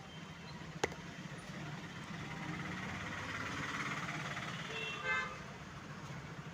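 Road traffic passing, with a short vehicle horn toot about five seconds in, over a steady low hum. A single sharp click sounds just under a second in.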